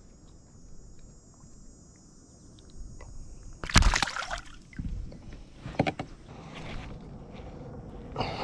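A largemouth bass, let go at the side of a boat, splashes loudly as it kicks away about four seconds in. A few softer splashes and knocks follow.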